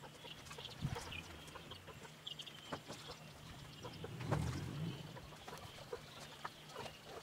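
Faint bird calls, short and high, mixed with scattered light clicks.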